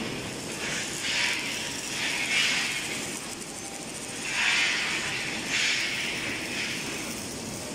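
Factory-hall machinery noise: a steady low rumble broken by several hissing bursts, each about half a second to a second long.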